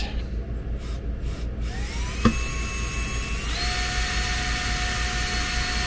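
Cordless drill spinning up with a rising whine about two seconds in, then running steadily with its bit pressed against a rivet, with a sharp click just after it starts and a change in its pitch about halfway through. It is an attempt to drill out the rivets of the old vent fan's motor mount that makes little headway.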